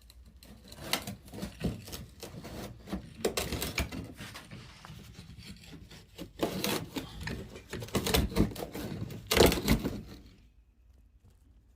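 Wrench and metal scraping and knocking as the old, rusted pressure relief valve is worked loose: irregular grinding strokes and clanks, the loudest near the end, stopping about ten and a half seconds in.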